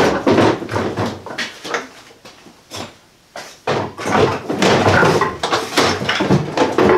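Hard plastic rolling tool box stack clattering and knocking as it is handled on the floor and hauled back upright after a drop test: a run of knocks and rattles, dying down after about a second, then busy again from about three and a half seconds in.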